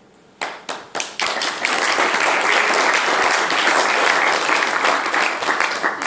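Audience applauding: a few separate claps about half a second in, quickly swelling into full, steady applause.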